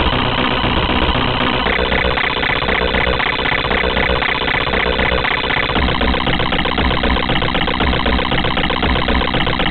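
Harsh computer-generated sound played by a home-made C++ effects program: a dense, repeating buzzy pattern that switches abruptly to a new pattern about two seconds in and again about six seconds in.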